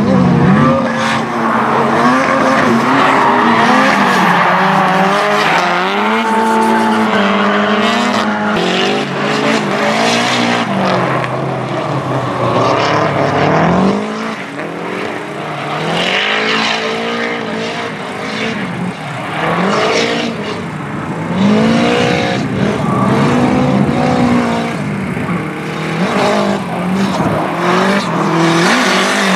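Drift cars sliding through a course, their engines revving up and down over screeching tires. About halfway through it changes to a single car drifting, a little quieter.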